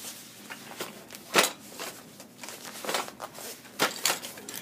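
Handling noise from a vinyl tool roll being opened and turned over: rustling with several sharp clacks and knocks, the loudest about a second and a half in.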